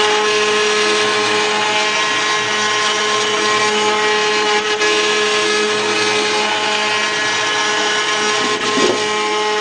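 CNC milling machine's spindle whining steadily as a ballnose cutter mills a pocket in aluminium plate, with a continuous noisy cutting sound under the whine.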